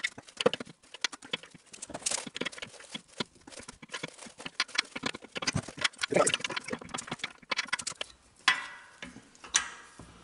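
Metal engine parts clinking and knocking irregularly as the crankshaft and connecting rod are worked into a small single-cylinder engine's crankcase.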